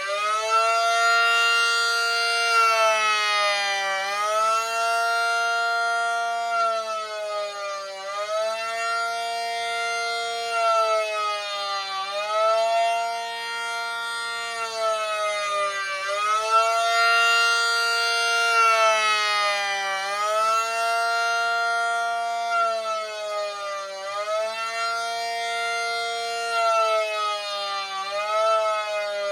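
Miniature replica ACA P-50 warning siren sounding one signal. Its pitch holds high for about three seconds, then dips and climbs back, in a cycle that repeats roughly every four seconds.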